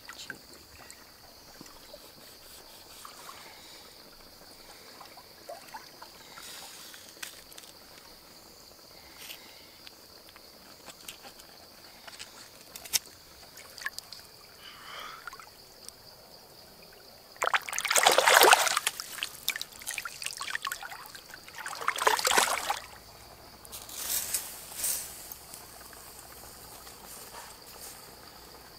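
Hands swishing and rubbing eels in shallow river water: light splashing and trickling, with two louder bursts of splashing about two-thirds of the way through. A steady high-pitched hum runs underneath.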